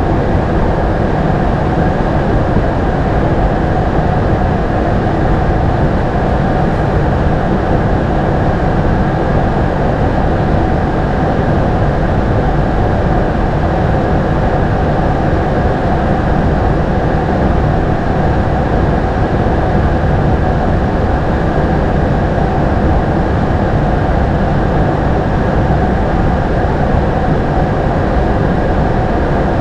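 Steady flight-deck noise of an Airbus A220-300: a constant rush of air and engine hum that does not change.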